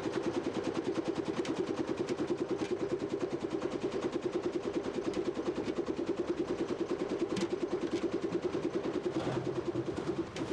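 Diesel engine of a Mercedes-Benz refuse truck idling, with a steady rapid pulse and a few faint clicks.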